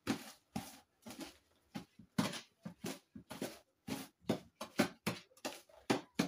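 A spatula stirring a thick detergent paste in a plastic basin, in quick, uneven strokes about three a second.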